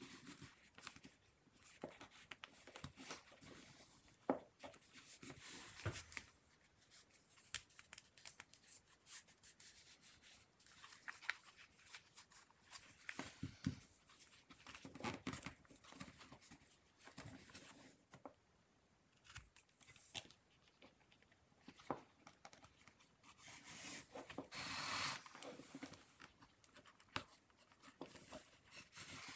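Close-up handling noise of leather being folded, pressed and rubbed by hands around a feather fan's handle. Irregular small scuffs, rubs and taps, with a longer, louder scuffing stretch about three-quarters of the way through.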